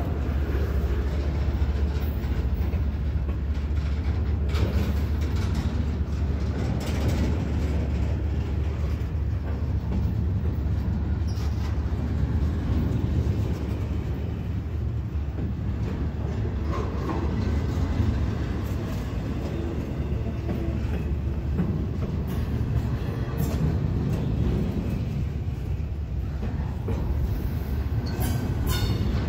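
Double-stack intermodal well cars of a Norfolk Southern freight train rolling past: a steady low rumble of steel wheels on rail, with scattered clicks and clanks. A brief high squeal comes near the end.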